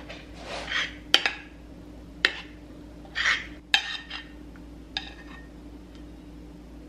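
A spoon scraping mug-cake batter out of a bowl into a ceramic mug, with soft scraping and four sharp taps of the spoon against the rims.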